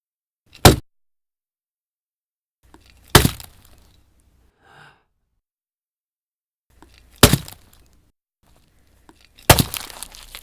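Foley gore effects: four sharp hacking or crushing hits on food props such as watermelon, bones and raw meat, standing in for a leg being hacked and a head being crushed. The hits come a few seconds apart, each trailing off in a crackle, and the last has the longest crunching trail.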